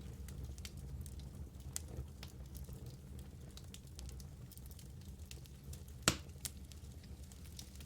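Wood fire burning in a fireplace, crackling with scattered small pops over a low steady rumble, and one louder pop about six seconds in.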